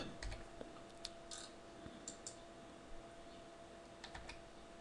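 Faint, scattered clicks of a computer mouse and keyboard, a few irregular taps over a low steady hum.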